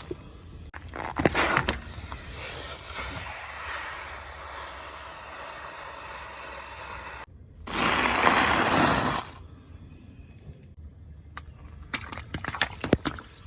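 A car tyre rolling over and crushing objects, crunching and cracking. The loudest part is a dense crunch lasting about a second and a half, about eight seconds in, and a quick run of sharp cracks comes near the end.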